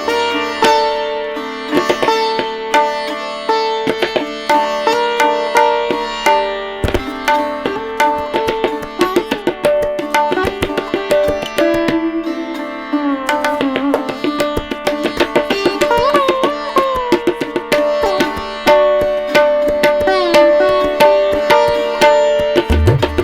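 Instrumental music: a plucked string instrument plays a melody with sliding, bending notes over a steady drone. Low drum strokes come in near the end.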